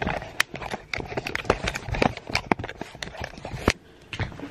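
Handling noise from a camera being moved and set on a tripod: irregular clicks, knocks and rustling that stop shortly before the end.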